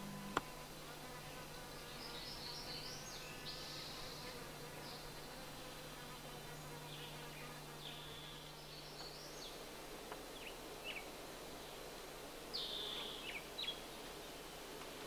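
Faint outdoor ambience: a steady low buzz, with short high chirps scattered through and one sharp click about half a second in.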